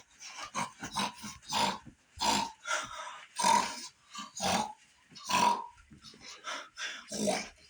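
Chicken making short, rough, pig-like grunting calls, repeated about once a second.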